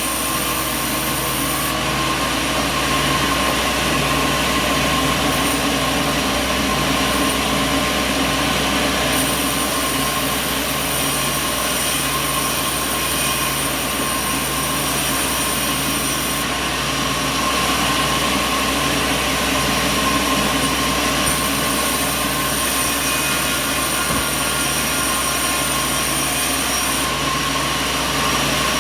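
Sawmill machinery running steadily and loudly, a dense mechanical noise with a constant whine over it.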